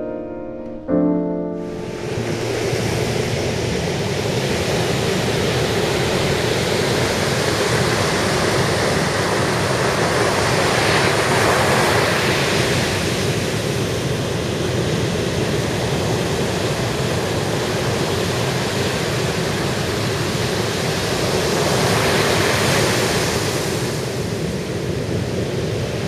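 Heavy ocean surf breaking on a sandy beach: a steady rush of rough waves that swells louder about halfway through and again near the end. Piano music ends in the first second or two.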